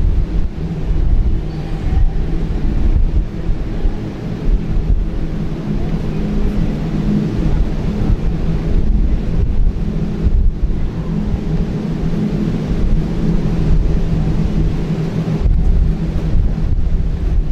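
Wind buffeting the camera's microphone: a steady, rough low rumble that swells and dips.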